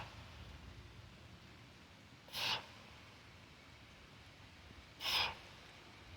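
A man's sharp, forceful exhalations, twice about two and a half seconds apart, breathing out hard with each strict one-arm press of a 40 kg kettlebell. A light rain hisses steadily underneath.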